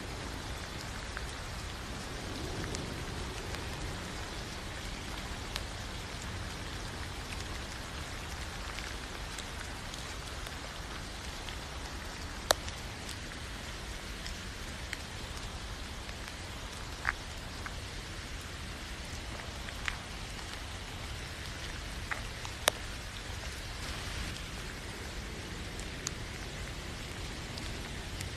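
Steady rain falling, an even hiss of drops, with a few sharp, louder single drop hits scattered through it.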